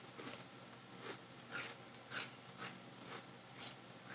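Crunchy jalapeño chips being chewed close to the microphone, a run of sharp crunches about two a second.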